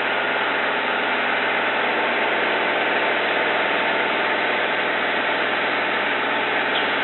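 Saab Safir light aircraft heard from inside the cockpit in a gliding descent: a steady drone of the piston engine and propeller mixed with the rush of airflow, the engine throttled back for a practice engine-out approach.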